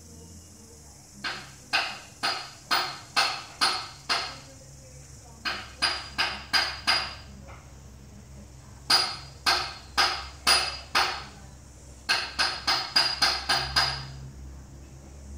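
Sharp knocks with a short ring, in four quick runs of five to eight strokes, two to four a second, like hammer blows on a nail.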